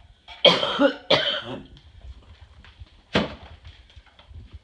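A man coughing: two coughs close together about half a second in, then one shorter cough around three seconds in.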